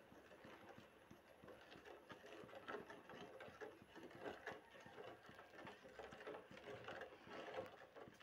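Faint, irregular scraping and tapping of a long ladle against a steel pot as thick milk payasam is stirred steadily.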